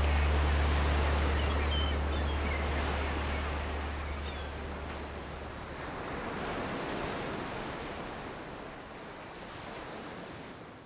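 Ocean surf: a steady wash of breaking waves, with a few short high chirps early on. A low sustained note carried over from the preceding music dies away in the first few seconds, and the surf fades out at the very end.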